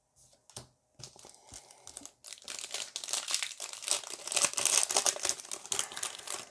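Foil wrapper of a Pokémon TCG Shining Fates booster pack crinkling and tearing as it is pulled open by hand. A few faint handling clicks at first, then dense crackling from about two seconds in, loudest near the middle, as the wrapper is torn and peeled off the cards.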